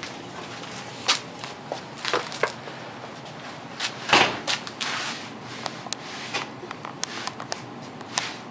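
Scattered knocks and clanks of metal furnace parts being handled and pulled apart for scrap, the loudest about four seconds in.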